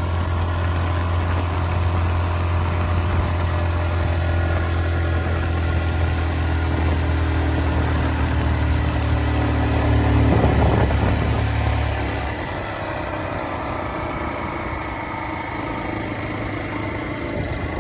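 Motor vehicle engine running with a steady low drone. It swells briefly about ten seconds in, then drops to a quieter running sound from about twelve seconds.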